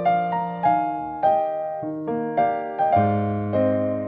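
Background piano music: gentle notes struck about every half second, each fading away, with a deeper bass note joining about three seconds in.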